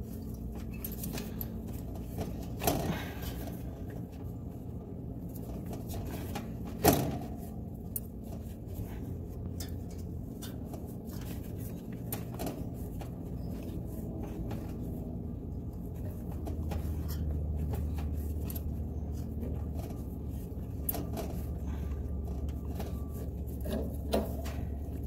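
A tubing cutter being turned around a copper refrigerant line, its wheel scoring the pipe, with a few sharp clicks and knocks of the tool against the tubing, one louder than the rest. A low steady hum runs underneath and grows louder about two-thirds of the way through.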